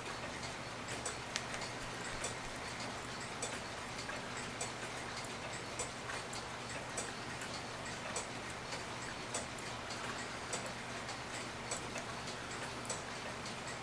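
Regula cuckoo clock movement ticking steadily, with louder and softer ticks alternating about every 0.6 seconds.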